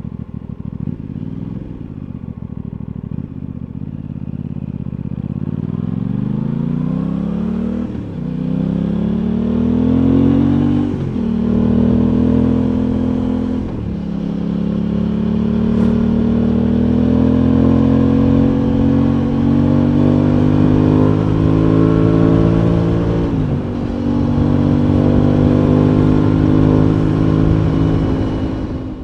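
Aprilia Tuono 660's parallel-twin engine pulling hard up through the gears: the note climbs, drops at an upshift, and climbs again, with three quick shifts in the first half and another later on. It then holds a fairly steady, slowly rising cruise.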